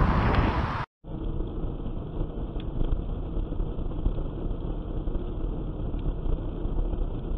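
Steady, muffled car cabin noise, engine and tyres on the road at about 80 km/h, picked up by a dashcam's microphone, with a few faint ticks. In the first second, wind rushing over a motorcycle rider's camera microphone cuts off abruptly.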